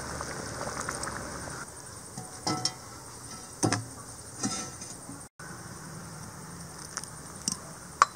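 Thick kadappa gravy of lentils and potato simmering in a pot with a soft bubbling patter, which stops about two seconds in. Then come several separate knocks and clinks of cookware, the loudest about halfway through.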